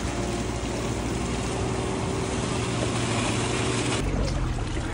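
An engine running steadily with a low hum, over a constant broad hiss. The sound changes abruptly about four seconds in.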